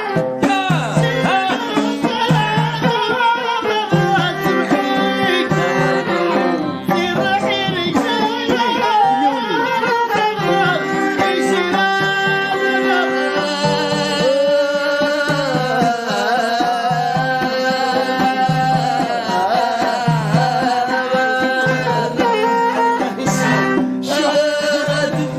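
Amazigh folk music: a pitched melody line with singing over a steady drum beat.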